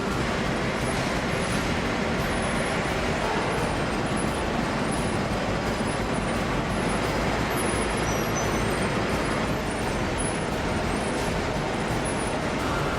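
Steady machinery noise from a foundry line, an even din with no distinct strikes or changes.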